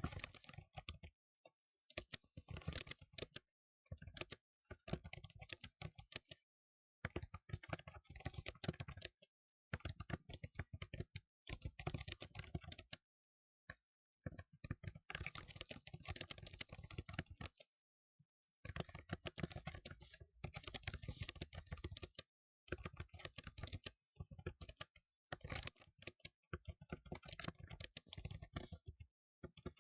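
Loud, fast typing on a keyboard, in runs of rapid key clicks lasting a second or two, broken by short, dead-silent pauses.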